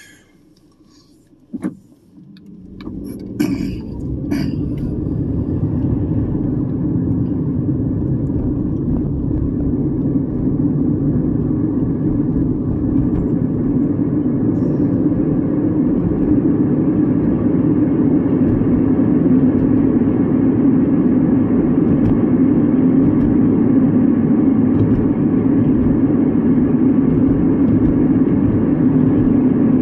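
A car pulls away from a stop, heard from inside the cabin. About two seconds in, after a click, the engine and tyre noise rise over a couple of seconds and then hold steady as the car cruises.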